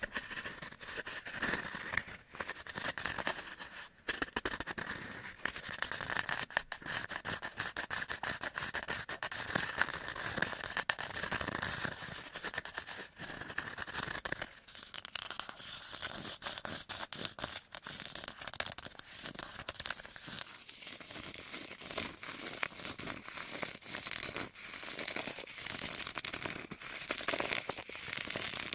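Close-up ASMR ear cleaning: an ear-cleaning tool scratching and scraping rapidly and continuously against the microphone, with the texture of the rubbing changing about halfway through.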